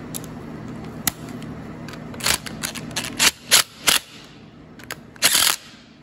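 Cordless impact driver with a deep-well socket firing in about five short hammering bursts, the last the longest, as it runs down the set screw that holds the PTO shift lever. A few sharp clicks of the socket and tool being handled come first.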